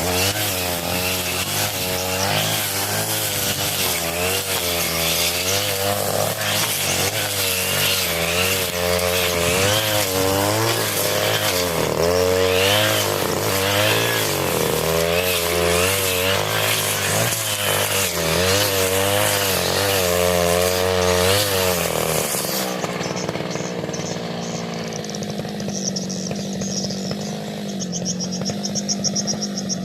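40cc two-stroke brush cutter with a 40 cm blade, cutting through thick grass, its engine pitch repeatedly rising and falling under load. About three-quarters of the way through it drops to a quieter, steady lower note.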